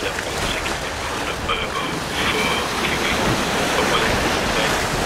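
Steady rush of wind on the microphone over the wash of small waves on choppy water.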